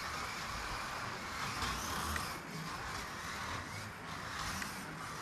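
Scaleauto BMW Z4 GT3 1:24 slot car running laps on a wooden track: its small electric motor whines, rising and falling with the throttle, over a steady rolling rumble.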